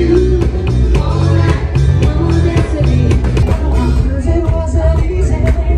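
Live band playing a song: drum kit, bass and guitar, with a singer's vocal over it, heard close to the drums.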